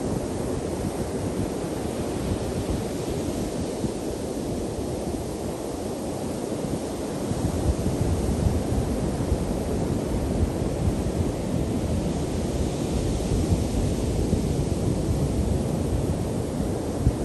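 Ocean surf breaking and washing up a sandy beach in a steady rush, with wind buffeting the microphone. The surf grows louder a little before halfway through.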